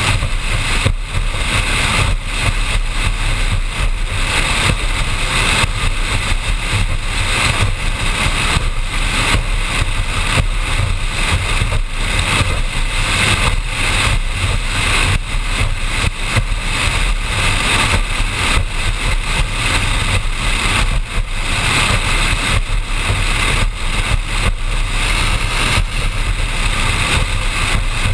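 Offshore powerboat running steadily at speed: its engine drone is mixed with heavy wind buffeting on the deck-mounted microphone, which flickers rapidly in level.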